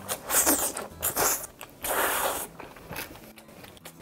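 Close-miked chewing of a mouthful of sushi, coming in three noisy bursts over the first two and a half seconds, then quieter.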